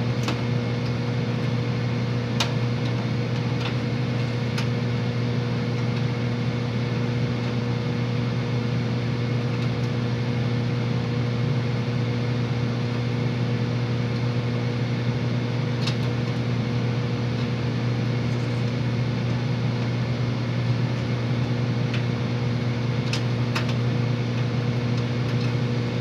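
Steady electric motor hum with a constant low drone and higher overtones, with a few short metallic clicks and taps from hands working on parts inside a gas furnace's burner compartment.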